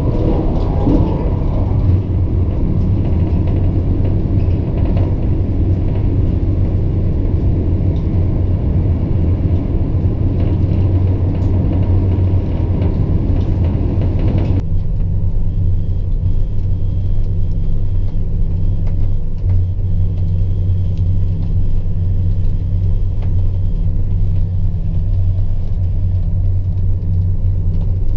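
ICE 1 high-speed train running at speed, heard inside a passenger coach as a steady, loud rumble with a low hum. About halfway through, the sound changes abruptly: the higher rumble drops away and a smoother, steady low hum remains.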